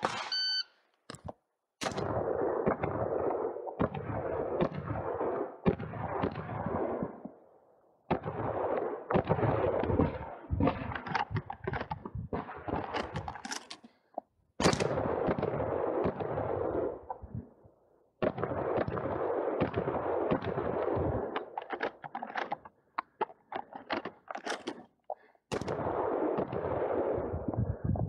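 Benelli M2 SP semi-automatic shotgun fired in a string of shots spread across the stage, with shells being loaded by hand between them.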